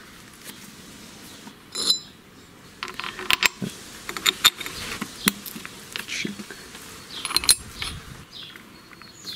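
Small metal parts clicking and clinking as a cut steel plate and a cup washer are handled and fitted onto the threaded spindle of a brush trimmer's gearbox head. The light knocks come irregularly, with one short metallic ring about two seconds in.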